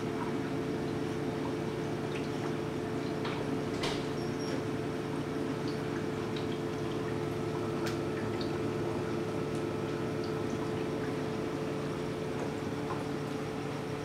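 Reef aquarium running: water trickling and dripping over a steady pump hum, with faint scattered ticks of drips.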